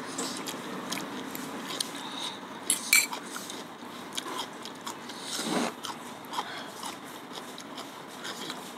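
Eating sounds: chewing and biting of spicy noodles and rice cake, with cutlery clicking and clinking against a pan and a glass bowl. The sharpest clinks come about three seconds in.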